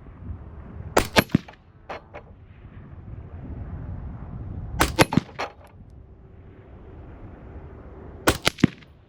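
Shots from an AR-15 rifle chambered in .223 Wylde, fired at steel popper targets. The shots come in bunches about one, five and eight seconds in, each sharp report followed within a split second by fainter cracks.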